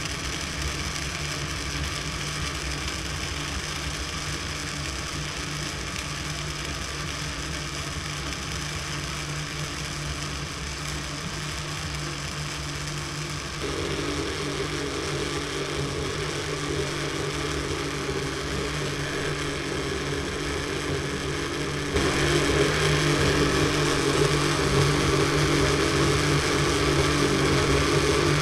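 Electric countertop blender running steadily, its motor hum stepping louder about halfway through and again near the end, as it purées chopped beetroot and ginger with water into juice.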